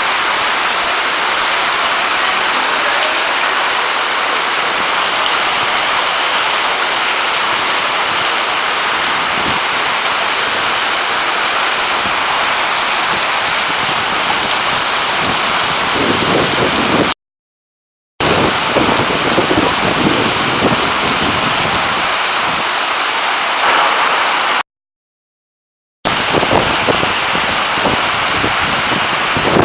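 Heavy downpour in a thunderstorm: a dense, steady rush of rain that grows heavier with more low splashing after about sixteen seconds. The sound cuts to total silence twice, for about a second and then about a second and a half.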